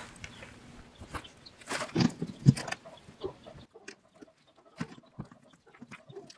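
Scattered clicks, taps and knocks of plastic and metal as the factory rear door speaker is worked loose and taken out of the door panel. The knocks are loudest about two seconds in, then thin out to light ticks.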